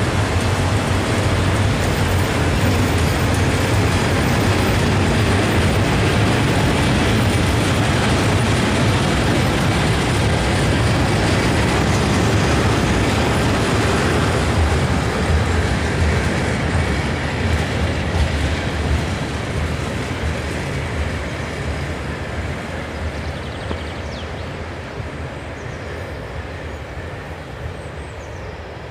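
Freight train of rail tank wagons rolling past close by, a steady rumble of wheels on rail. From about two-thirds of the way through it fades steadily as the last wagons pass and the train draws away.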